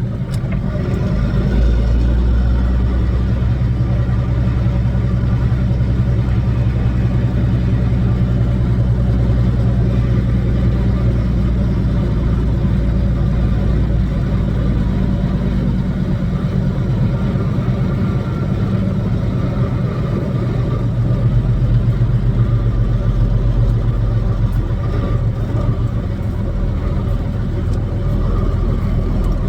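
Kenworth W900's Caterpillar diesel engine running steadily as the truck drives, heard from inside the cab. Its note changes about two-thirds of the way through.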